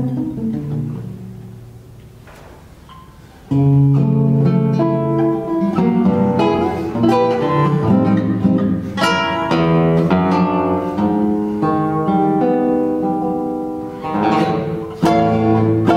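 Solo classical guitar playing. A chord rings and fades over about three seconds, then dense, quick passages of plucked notes and chords begin suddenly. There is a brief dip just before a loud chord near the end.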